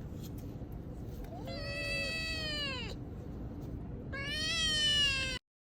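Cat meowing twice: two long, drawn-out meows, the first falling in pitch at its end, the second louder and cut off abruptly.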